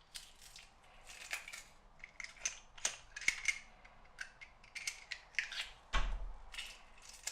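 Kitchen work at close range: an irregular run of short clicks, snips and scrapes from utensils and food being handled, with a heavier knock about six seconds in.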